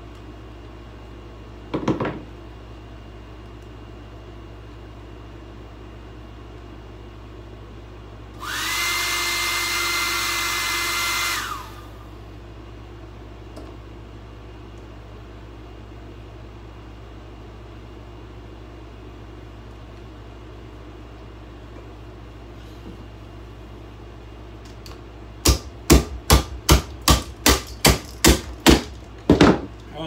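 An old hand-held hair dryer switched on and run for about three seconds, a steady motor whine over rushing air, then switched off. Near the end, about a dozen hard blows in quick succession, roughly three a second, as the dryer is beaten apart.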